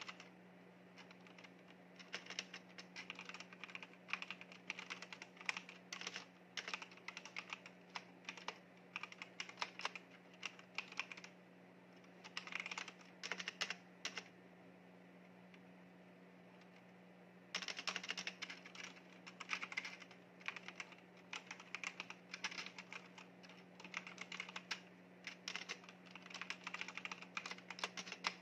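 Fast typing on a mechanical keyboard: dense runs of key clicks in bursts, a pause of about three seconds past the middle, then steady unbroken typing. A steady low hum runs underneath.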